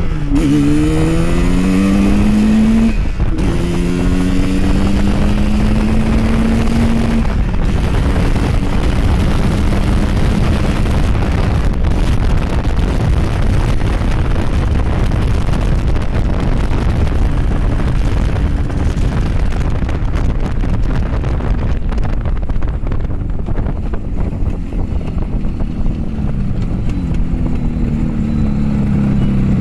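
Yamaha RD350's air-cooled two-stroke parallel twin being ridden: its note climbs through the gears, dipping briefly twice in the first eight seconds at upshifts. It then settles into a steady cruise largely buried under wind noise on the microphone, and near the end the engine note comes through clearly again.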